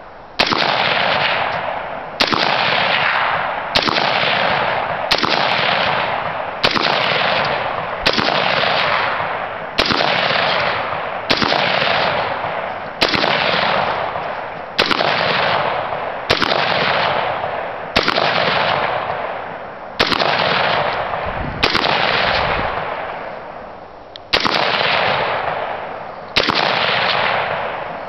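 Rock River Arms AR-15 rifle in 5.56 fired semi-automatically: about seventeen single shots at a steady pace, one every second and a half to two seconds, each shot followed by a long fading tail.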